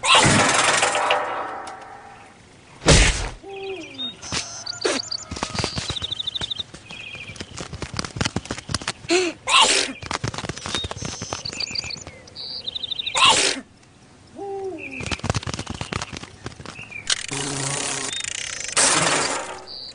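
Cartoon sound effects for an animated fly and spider: short squeaky chirping calls that bend up and down, fast high trills, and runs of small clicks. Several loud whooshing bursts cut through, the loudest a sharp thump about three seconds in.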